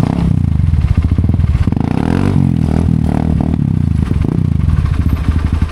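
Hero Xpulse's single-cylinder engine running at low revs on rough trail, the pitch wavering up and down with the throttle in the middle, with some clatter from the bike.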